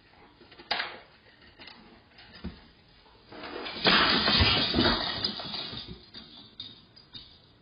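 A decorated Christmas tree pulled over by a dog and crashing onto the floor: a loud jumble of branches and ornaments clattering that lasts about two seconds, starting a little past the middle. A few small knocks come before it as the tree is tugged.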